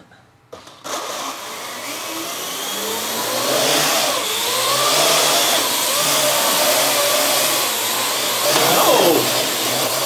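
Parrot AR.Drone quadcopter spinning up about a second in and flying, its four electric motors and propellers whirring with a pitch that wavers up and down as it holds its hover. The whir sweeps quickly in pitch near the end as the drone manoeuvres.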